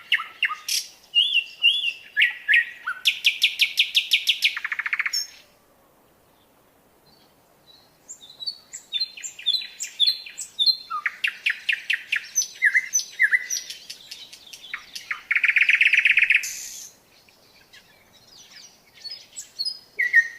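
A songbird singing a varied song of chirps and fast trills, in long phrases broken by pauses of a couple of seconds, with a harsh buzzy note near the end.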